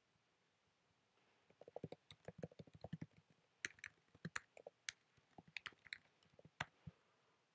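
Computer keyboard being typed on: an irregular run of sharp key clicks starting about a second and a half in and stopping near the end.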